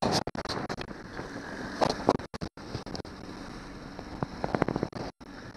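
Johnson 90 hp V4 outboard running under way, pushing a small boat through choppy water, with wind buffeting the microphone. A few sharp knocks come through, the loudest about two seconds in, and the sound cuts out briefly a few times.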